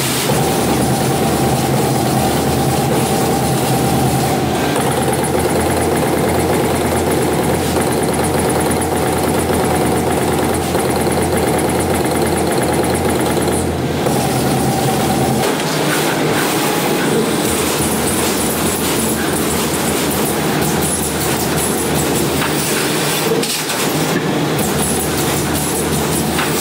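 TRUMPF TruPunch 5000 CNC punching machine punching sheet metal: a rapid, continuous clatter of punch strokes over a steady machine hum. The low hum drops away a little past halfway while the clatter goes on.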